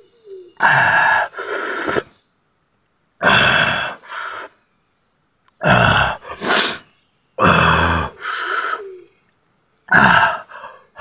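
A man's loud grunts and groans in pain from the burn of very spicy chilli: five drawn-out outbursts, each about a second long, with short silent breaths between.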